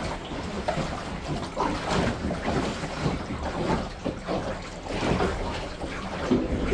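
Water splashing and lapping against the hull of a sailing yacht, with wind buffeting the microphone: an uneven wash of noise with frequent small surges.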